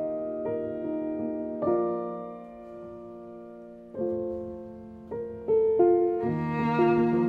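Background music: a piano playing slow chords that ring out and fade, coming closer together near the end.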